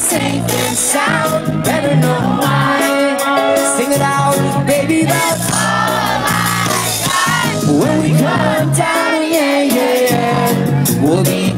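Reggae band playing live with singing over bass, drums and guitar, heard from within the audience.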